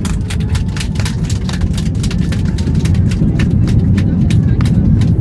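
Airbus A320 rolling out on the runway just after touchdown, heard inside the cabin with its wing spoilers deployed: a deep, steady roar of engines and wheels that grows gradually louder, with many sharp rattles and knocks as the airframe jolts along.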